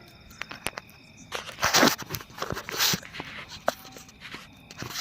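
Footsteps crunching on dry ground, with two louder scuffing bursts about a second and a half and three seconds in. Crickets chirp behind them.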